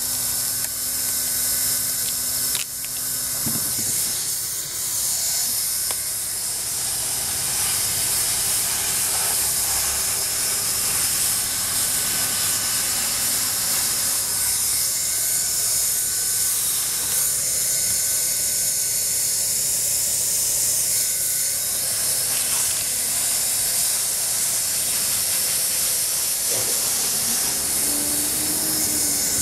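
Handheld hot-air plastic welder blowing a steady hiss of hot air as it heat-welds TPO roofing membrane to a drain's coated flange.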